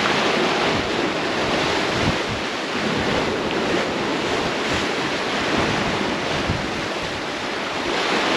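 Strong wind buffeting the microphone over the steady rush of choppy sea and white water churning in the catamaran's wake, the noise swelling and easing a little.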